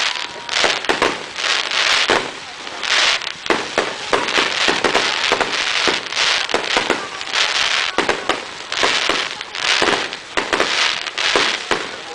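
Aerial fireworks going off in quick succession: many sharp cracks and pops over dense crackling, with hissing bursts about once a second.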